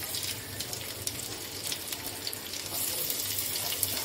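Chopped onion sizzling and crackling in hot mustard oil with cumin seeds in a wok, a steady hiss with fine pops that grows a little louder about three seconds in.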